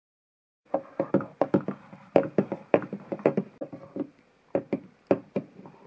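Horse hoofbeats clopping on a hard surface: a quick, irregular run of sharp knocks, about four a second, starting under a second in and thinning out near the end.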